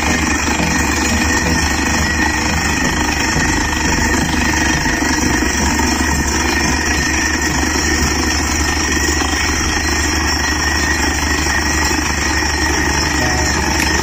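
A borewell drilling rig runs steadily while it drills, its engine and air compressor sounding at an even, constant level. Compressed air blows dust and rock cuttings up out of the bore.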